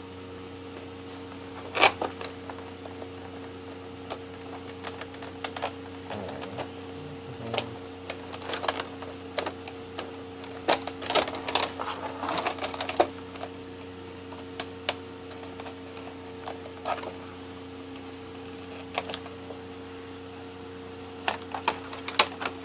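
Precision hobby knife cutting and scoring thin plastic packaging: irregular clicks and crackles, bunched most closely in the middle, over a steady low hum.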